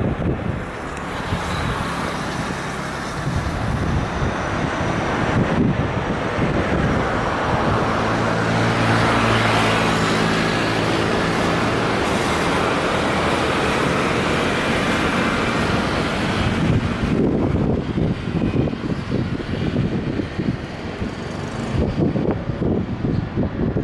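Jet airliner passing, its engine noise building slowly to a peak about ten seconds in, with a few low steady tones in the mix, then fading away. Gusts of wind buffet the microphone near the end.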